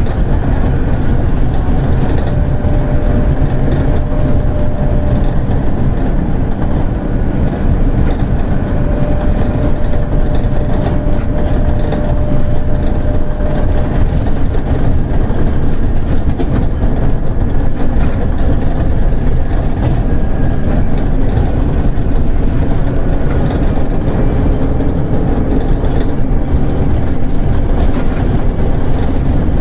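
Scania DC9 five-cylinder diesel engine of a Scania K280UD bus pulling up a slope under heavy throttle, heard from inside the passenger cabin: a loud, steady deep drone with a faint whine over the first half.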